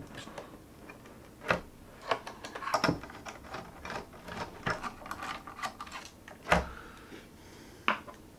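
Irregular clicks, taps and knocks of parts and cable connectors being handled and worked loose inside an opened iMac's aluminium housing, with a few sharper knocks about one and a half, three and six and a half seconds in.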